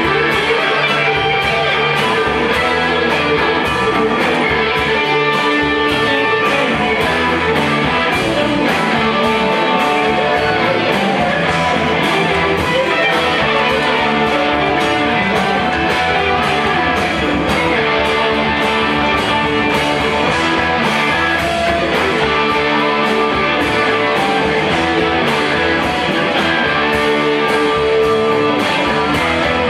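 Live rock band playing: electric guitars over keyboard and a drum kit keeping a steady beat, loud and continuous.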